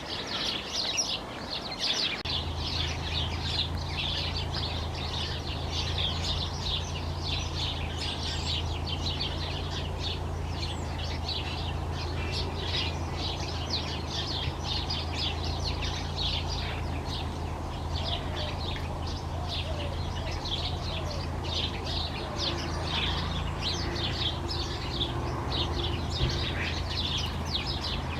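A dense chorus of house sparrows chirping, many rapid overlapping chirps with no pause, mixed with other garden birds. Under it a steady low hum comes in about two seconds in and carries on.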